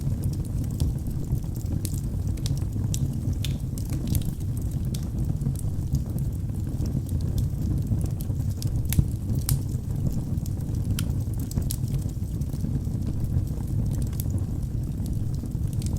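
Wood fire burning in a fireplace: a steady low rumble of flames with frequent irregular crackles and pops of burning wood, one louder pop about nine seconds in.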